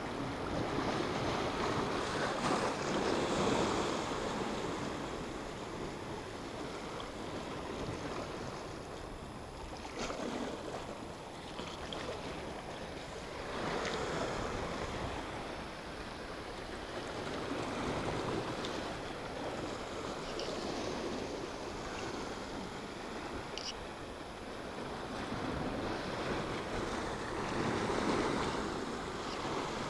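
Sea waves breaking and washing against shore rocks, a steady rush of surf that swells into louder surges every few seconds.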